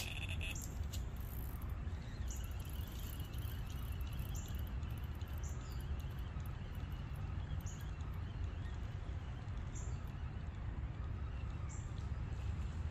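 Outdoor ambience: a steady low rumble with short high chirps recurring every one to two seconds.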